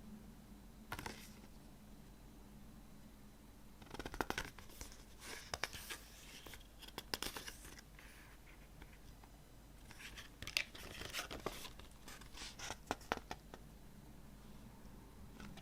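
Plastic wrapping being torn and crinkled off a new CD: a short crackle about a second in, then two longer spells of tearing and crinkling.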